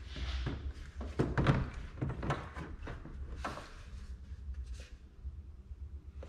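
Handling noises from a plastic antifreeze jug and the siphon hose of a vacuum coolant filler: scattered knocks, clicks and rustles as the jug is opened and the hose is fed in. A low steady hum runs underneath.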